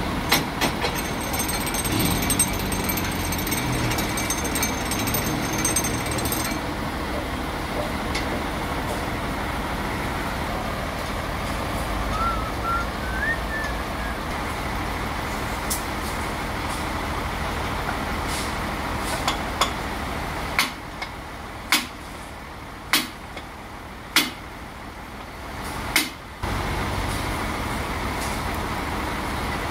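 Band sawmill machinery running with a steady mechanical din as a log is set on the carriage. About twenty seconds in, the din drops for several seconds while four or five sharp knocks ring out. Then it comes back abruptly.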